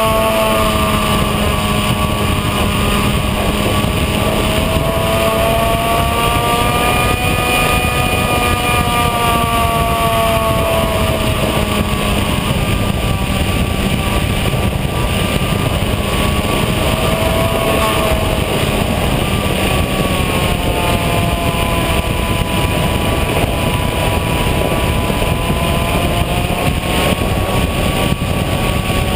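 Bixler RC plane's electric pusher motor and propeller running steadily in flight, heard from the onboard camera, its whine slowly rising and falling in pitch, over wind rushing across the microphone.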